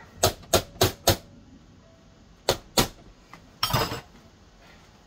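Metal potato masher rapped on the rim of a stainless steel saucepan to knock off the mash: four quick sharp knocks, two more about a second later, then a short clatter.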